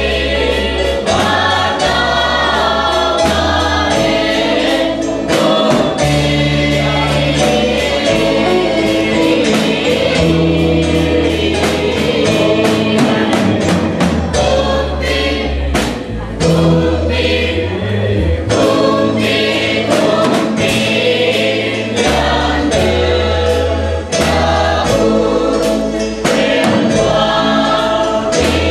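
Mixed church choir singing a hymn together, accompanied by a Yamaha electronic keyboard playing held bass notes and chords, with a drum kit keeping a steady beat.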